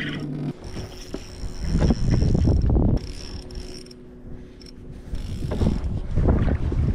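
Spinning reel being cranked to bring a hooked bass to the boat, its gears and rotor whirring and clicking. Two loud bursts of low rushing noise come through, one about two seconds in and another near the end.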